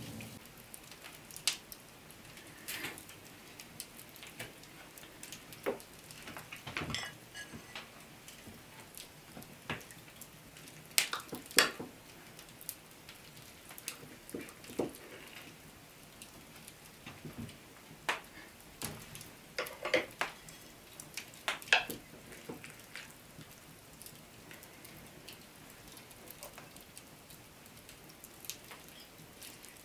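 A serving spoon clinking and scraping against dishes and a plate as food is dished up: irregular sharp clinks, most frequent and loudest in the middle stretch, thinning out over the last several seconds.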